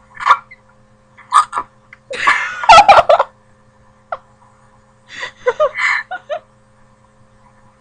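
A girl hiccuping in short, sharp vocal yelps, with a longer loud burst of laughter about two seconds in and more laughing and hiccups a couple of seconds later.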